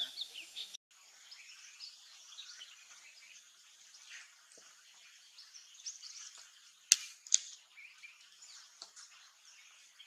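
Faint outdoor bird chorus of scattered small chirps and calls, with two sharp clicks about half a second apart a little past the middle.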